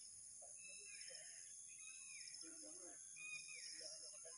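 Faint outdoor ambience: a bird repeats a short curved call about once a second over a steady high insect drone, with faint distant voices.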